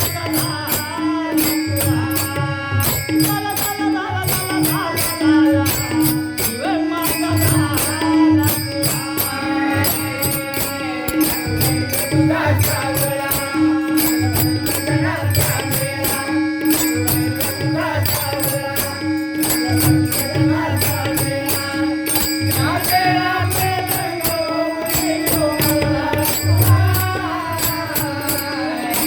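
Marathi devotional folk music: a wandering melody line over low drum beats and an even, fast run of jingling percussion strokes, with a recurring held tone underneath.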